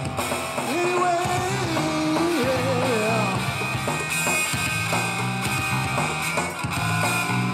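A rock and roll band playing live, led by an electric guitar, with a wavering held melody line in the first few seconds.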